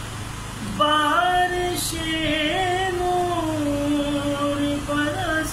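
A man singing a naat unaccompanied, starting about a second in, in long held notes with wavering ornamented turns.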